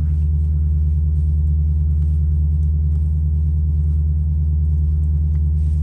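Steady low rumble of the Lexus GS F's engine idling, heard from inside the cabin.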